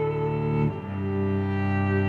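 Background music of slow, sustained low notes, moving to a new chord about two-thirds of a second in.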